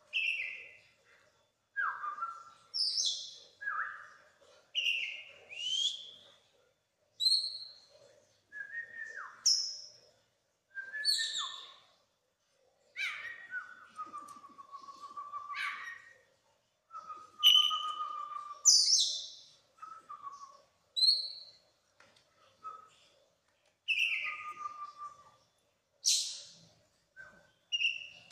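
Caged oriental magpie-robin (kacer) singing non-stop, a string of varied phrases coming one after another about every second: sharp downslurred whistles, rising notes and short buzzy trills. It is running through its 'isian', the song phrases it has learned from other birds.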